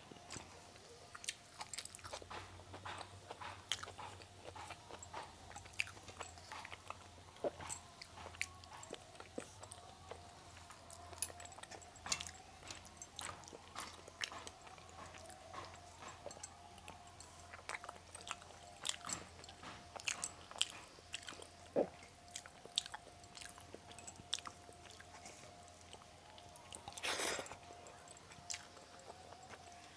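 Close-up sounds of a person eating an Indian vegetarian lunch: chewing and biting, with frequent short crunchy and smacking clicks. A faint steady hum sits underneath.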